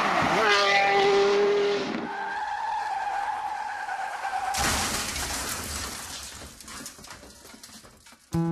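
Car tyres squealing in a long skid, then a sudden crash about four and a half seconds in that dies away with scattered clinks of debris.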